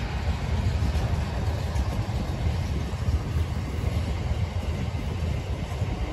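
Steady low rumble of a train running along an electrified main line.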